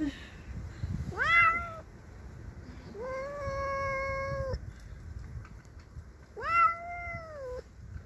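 Domestic tabby cat yowling three times, drawn-out calls of territorial anger at a neighbour's cat outside. The first call rises in pitch, the middle one is held level and longest, and the last rises then falls away; the first and last are the loudest.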